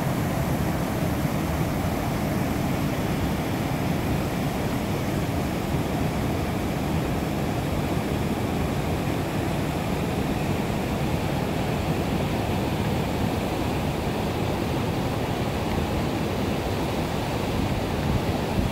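Shallow rocky stream rushing over stones and small rapids: a steady, even rush of running water.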